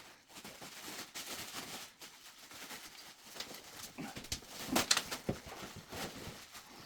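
Gloved hands gripping a heavy vertical designer radiator in a first, failed attempt to lift it onto its wall brackets: faint rustling and scraping with a few light knocks, the loudest about five seconds in.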